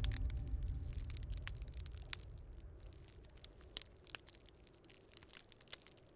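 Fire crackling, with scattered sharp pops and snaps over a low rumble that fades away in the first few seconds.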